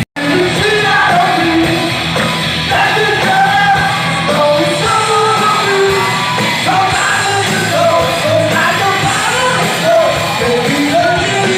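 A live rock band playing with a lead singer, amplified in a large hall; a split-second gap at the very start, then the song runs on steadily.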